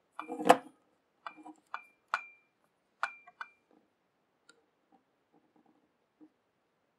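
Small scissors snipping cotton wick: a series of sharp metallic clicks, each with a brief ring. About seven snips come in the first three and a half seconds, then a few faint ones.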